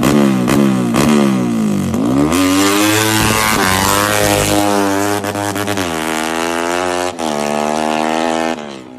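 Yamaha Y15ZR's single-cylinder four-stroke engine through an aftermarket exhaust, revved in quick blips about twice a second. Then it is held at high revs, climbing in steps, before the revs drop and the sound fades near the end.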